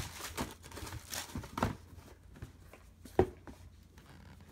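Tissue paper crinkling and rustling as hands dig through a sneaker box, with a few soft knocks. About three seconds in comes one sharp knock as the cardboard shoe box is set down.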